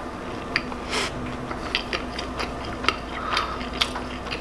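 A person chewing a mouthful of waffle, a run of sharp wet mouth clicks and smacks over a steady low hum.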